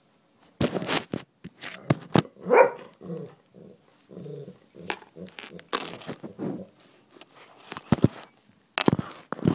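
Golden retriever puppy mouthing and nosing a phone on the floor: a string of close knocks, bumps and scrapes right on the microphone, with a brief rising and falling puppy vocalization about two and a half seconds in.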